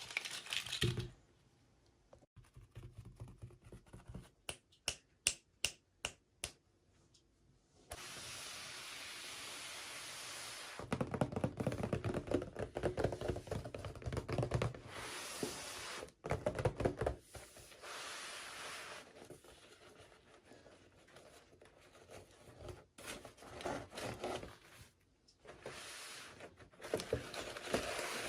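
Hands handling toy packaging. A quick run of sharp clicks about four to six seconds in, then rubbing and scraping of plastic and cardboard with occasional knocks.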